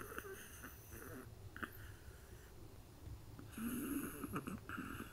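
Small Pomeranian dog snoring quietly in its sleep, in uneven runs of raspy breaths: a run over the first second, one short breath a little later, and a longer run through the last second and a half.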